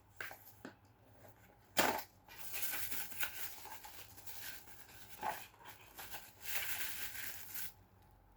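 Wrapping being torn open and crinkled by hand while unpacking an item, with a few sharp clicks and knocks; the loudest is a knock about two seconds in, followed by two longer spells of crackling tearing.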